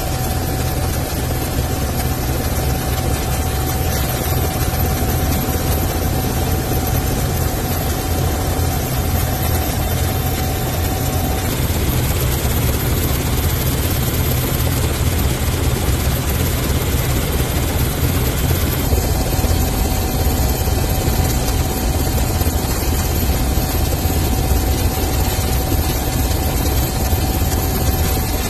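Helicopter's engine and rotor running steadily, heard from on board as a loud, constant deep rumble. A thin steady whine in it drops out about 11 seconds in and comes back about 19 seconds in.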